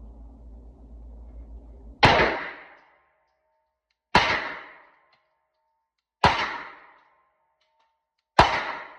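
A low hum, then four single shots from a Walther PDP 9mm pistol, slow deliberate fire about two seconds apart, each a sharp crack with a short ringing tail.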